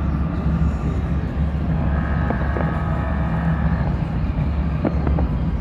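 Steady low engine rumble, with a held tone for about two seconds in the middle and a few faint firework crackles near the end.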